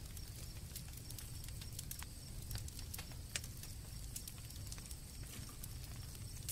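Campfire crackling: irregular sharp pops and snaps over a low rumble, with a faint steady high chirring of crickets behind.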